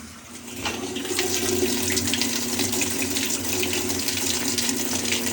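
Cold water pouring into an Amana top-load washer's tub through its cold-water inlet valve, switched on in diagnostic test mode. The flow builds within the first second, then runs as a nice steady flow, showing the cold inlet valve works.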